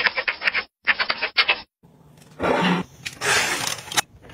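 Household objects being handled. Quick clattering clicks for about a second and a half, then, after a short pause, two spells of scraping and rustling.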